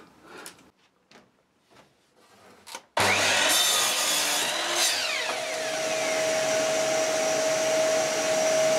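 Workzone mitre saw starting up suddenly about three seconds in and running, cutting through a wooden board, with a steady whine over the motor noise. Before it, a few faint clicks of a folding rule being handled.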